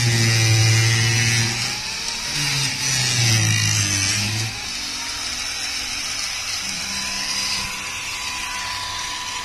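Handheld power grinders grinding the edge of a fibreglass boat hull. The motor pitch dips and recovers in the first few seconds as the disc is pressed on, then runs steadier.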